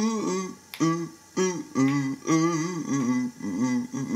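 A cappella pop song between sung lines: a man's wordless multitracked vocals, hummed and crooned phrases over a sung bass line, with finger snaps keeping the beat.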